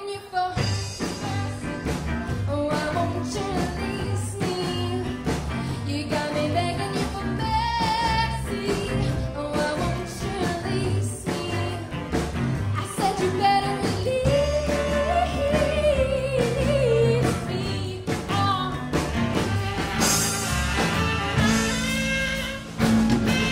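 Rock band playing live: a woman sings lead while drumming, over electric guitar and bass. Near the end the cymbals come in louder.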